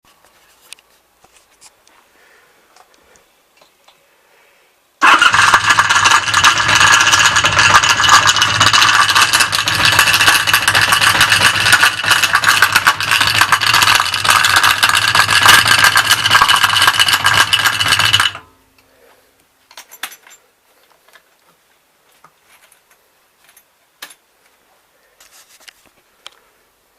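Honda VF1100C V4 motorcycle engine starting about five seconds in and running with a loud rattle, the nasty noise it makes on starting, then cutting off abruptly about thirteen seconds later.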